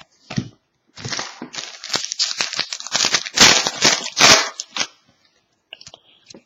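Foil wrapper of a trading-card pack crinkling and tearing, a dense crackle that peaks about three and a half seconds in and stops about five seconds in.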